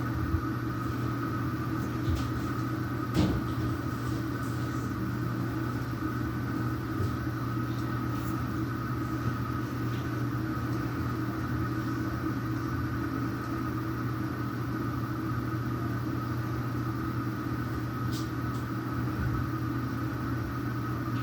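Steady machine hum, holding several fixed pitches, with a few light knocks in the first few seconds.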